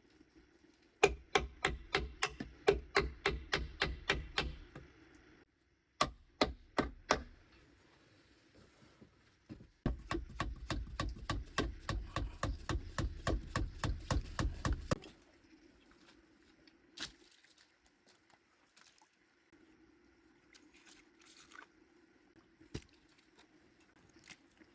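Fast, regular strokes of a hand tool working wood, about four to five a second, in three runs: a long run near the start, four strokes a little later, and a second long run that stops abruptly, followed by a few faint knocks.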